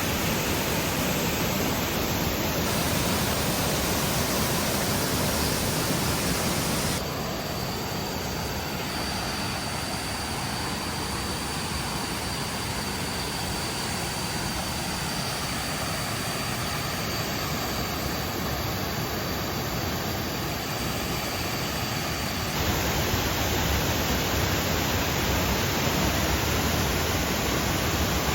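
Waterfall water rushing in a steady, dense hiss of noise. It changes abruptly about seven seconds in and again about three-quarters through; the middle stretch is a little quieter and carries a thin, steady high tone.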